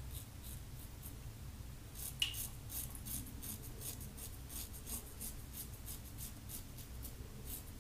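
Faint scraping of a Fine Accoutrements "Marvel" double-edge safety razor cutting through lathered mustache stubble in short, quick strokes. The strokes come thick and fast from about two seconds in. The blade is one the shaver feels is close to done and starting to tug.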